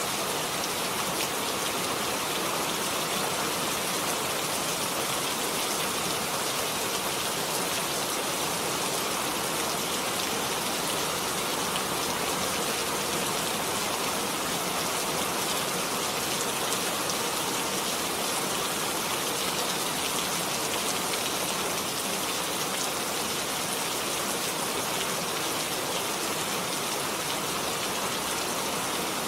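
Steady rain falling on a surface, a dense even hiss with fine drop patter throughout.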